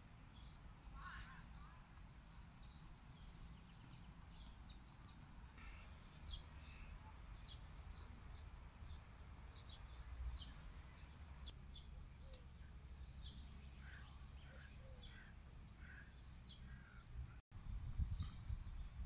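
Faint outdoor ambience of small birds chirping in many short, high calls, over a low steady rumble that becomes louder and more gusty near the end.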